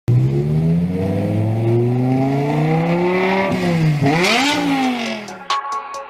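A car engine accelerating, its pitch climbing steadily for about four seconds, dropping sharply at a gear change, then climbing again briefly before fading away. Electronic music with a regular beat comes in near the end.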